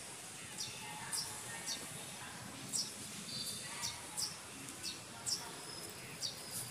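Short, high-pitched chirps from a small animal, repeated about every half second over faint background hiss.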